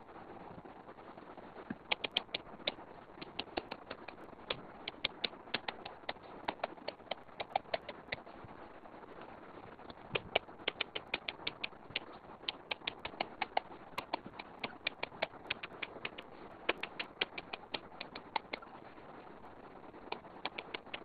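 A stylus tip clicking and tapping on a tablet's glass screen during handwriting: irregular sharp clicks, several a second, pausing briefly near the end.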